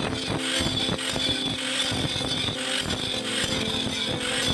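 Handheld angle grinder with a cut-off disc cutting steadily through a steel pipe.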